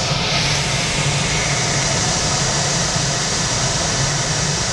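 Steady rushing airflow in a glider's cockpit in flight, with the wind coming in through an open canopy side window.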